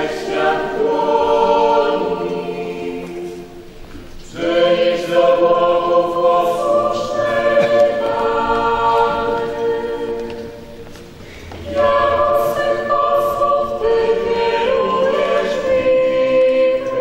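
A group of voices singing the entrance hymn of a Mass, in long held phrases with short breaks about four seconds and eleven seconds in.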